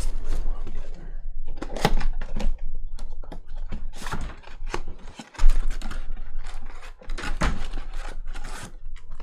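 A run of irregular clicks, taps and light rustles from hands working at a desk, with a faint low hum underneath.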